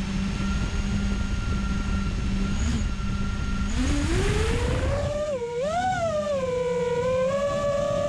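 FPV quadcopter's T-Motor Velox 1950kv brushless motors on 6S, spinning Ethix P3 props: a steady idle whine on the ground, then about four seconds in the pitch climbs sharply as the throttle comes up for takeoff, wavers once, and settles into a higher steady whine.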